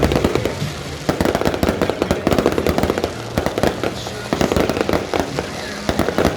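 Aerial fireworks show: a dense, continuous barrage of bangs and crackling, many shots a second with no pause.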